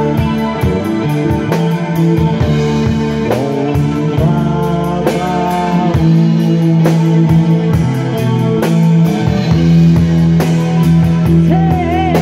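Live rock band playing an instrumental passage: electric guitar and electric bass over a drum kit keeping a steady beat.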